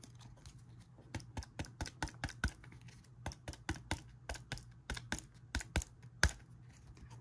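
Rapid light plastic clicks and taps from working a trading card into a rigid plastic top loader, about three to four a second, with a short pause about two and a half seconds in and a last click near the end.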